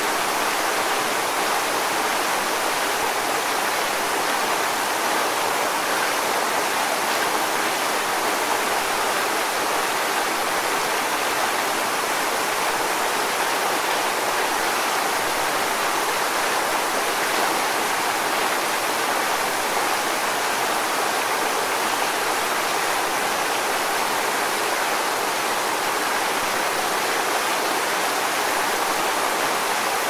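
Waterfall cascading into a pool: a steady, even rush of falling water, more hiss than deep rumble, with no breaks or changes.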